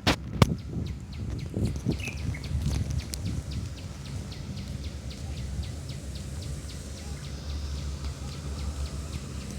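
A bird chirping over and over, short high chirps at about three a second, over a steady low rumble on the microphone; a few sharp clicks come right at the start.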